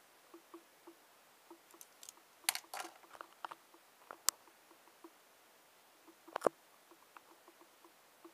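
Faint, regular ticking about three times a second, with a few clattering handling sounds on a desk, including a sharp click about four seconds in, as a ballpoint pen is put down.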